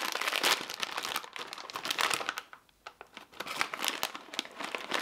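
Plastic snack bag being pulled open at its sealed top and crinkled, a dense crackling with a short lull past the middle before more crinkling.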